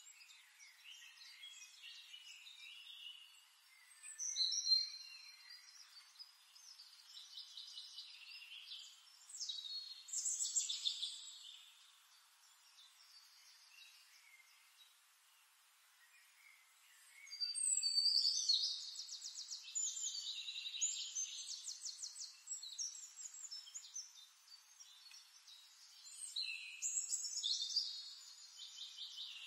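Small songbirds chirping and trilling in bursts, with quieter stretches in between; the busiest singing comes around the middle and near the end.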